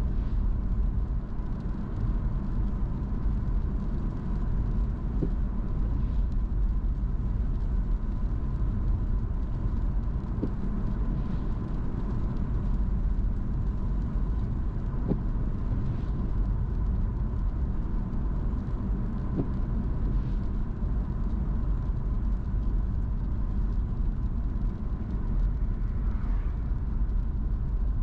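Car driving at a steady pace: an even low rumble of road and engine noise, with a few faint ticks.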